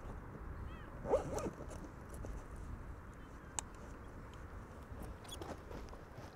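Wind rumbling on the microphone, with rustles of a person's clothing as he moves, loudest about a second in, and a few soft clicks and one sharp tick midway.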